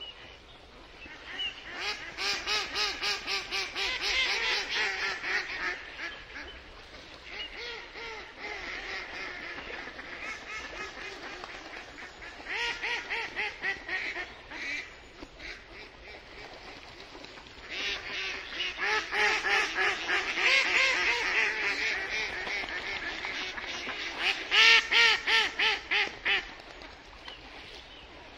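Mallard hen quacking in runs of rapid, evenly repeated quacks with short pauses between them. The last run is the longest, and its loudest quacks come near the end.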